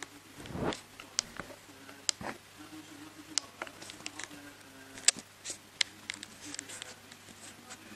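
Aquarium room sound: a steady low hum with scattered small, irregular clicks and ticks, and one low thump about half a second in.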